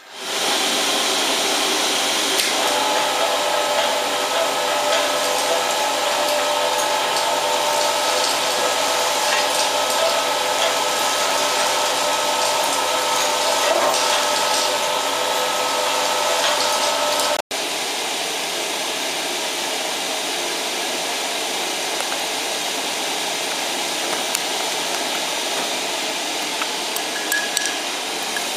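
Pellet burner running with the flame turned up: a steady rushing of its blower fan and burning pellets, with a steady motor whine on top for the first half. After a momentary dropout about 17 seconds in, the whine is gone and the rushing carries on a little quieter.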